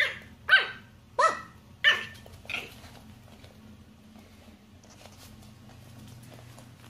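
Small white puppy yapping: five short, high-pitched barks about two-thirds of a second apart, each dropping in pitch, then stopping about two and a half seconds in. Only a few faint clicks follow.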